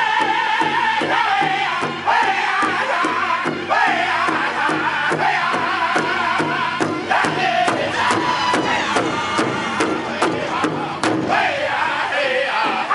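Powwow drum group singing loudly together around a large hide-covered drum, the singers striking it in unison with drumsticks in a steady, even beat under high, bending voices.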